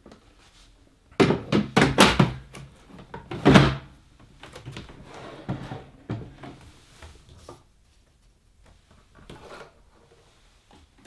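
A burst of loud plastic knocks and thunks about a second in, then lighter clatter: the dehumidifier's removable water tank being handled and set back in place.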